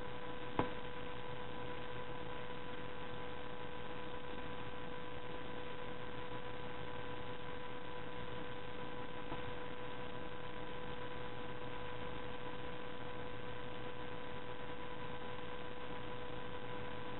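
Steady electrical hum with a faint hiss, unchanging throughout, and one small click about half a second in.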